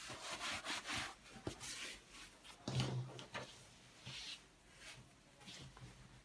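A canvas tote bag being rubbed and handled by hand: cloth brushing and rustling, with a dull thump about two and a half seconds in.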